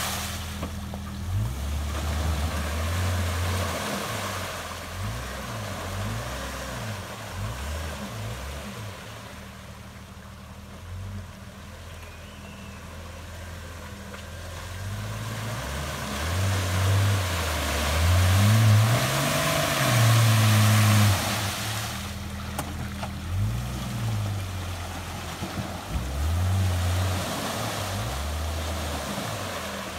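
1996 Jeep Grand Cherokee ZJ engine revving up and down in repeated pushes as the tires churn through mud and water. The revving is loudest a little past halfway through.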